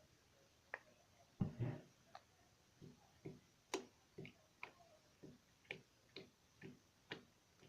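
Sticky slime being worked with borax activator: a short cluster of wet clicks, then a steady run of small faint clicks about twice a second.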